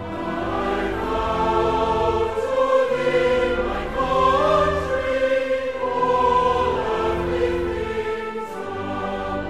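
Background music: a choir singing slow, long-held chords that swell and fall.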